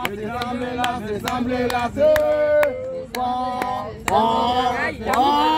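People singing a chant-like celebration song in long, held notes.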